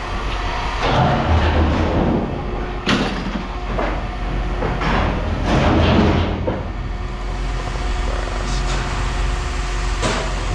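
An engine runs steadily under a string of metal clanks and scraping as scrap metal is handled, with about half a dozen sharp strikes spread through the stretch.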